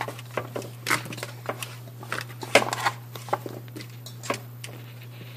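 Sweet potato chunks tipped from a stainless steel bowl onto a foil-lined roasting pan: irregular soft knocks and crinkles as the pieces land on the foil and knock against the bowl, over a steady low hum.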